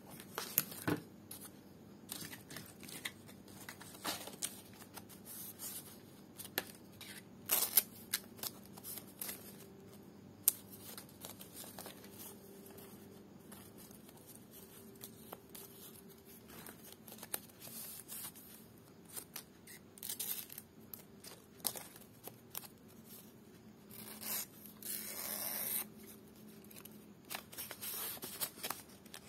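Small scissors snipping folded strips of dyed lontar palm leaf (ental), irregular sharp snips with rustling of the stiff leaf as it is handled. A longer rustle comes near the end.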